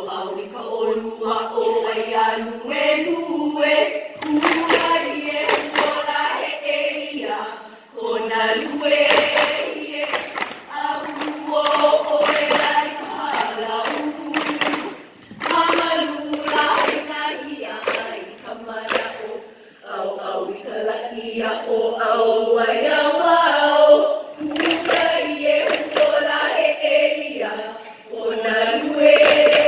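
A group of women chanting a Hawaiian mele together in unison, accompanied by sharp beats of ipu heke double-gourd drums struck and thumped by the dancers.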